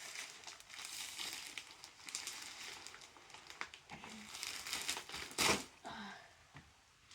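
Parcel packaging crumpling and rustling as it is opened and handled, with one loud crackling crunch about five and a half seconds in.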